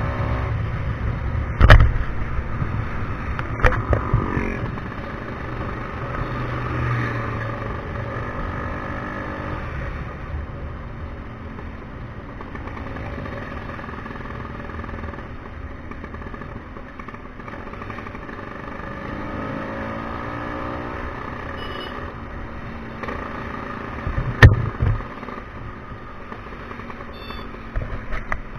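Tuned-up Vespa scooter engine running under way, its pitch rising and falling as the throttle is opened and eased off. A few sharp thumps break through, the loudest about two seconds in and again near the end.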